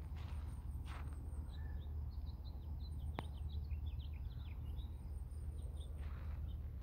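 Footsteps on a gravel path, a step near the start, one about a second in and one near the end, with small birds chirping in a quick run of short high notes through the middle, over a steady low rumble. A single sharp click sounds about three seconds in.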